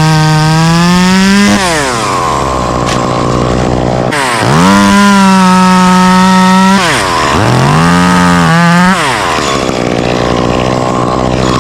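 Two-stroke Stihl chainsaw run up to full throttle three times, each burst held steady for one to three seconds, then dropping back toward idle between bursts.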